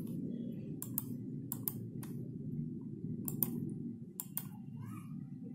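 Computer mouse clicking: four quick pairs of sharp clicks over a steady low hum.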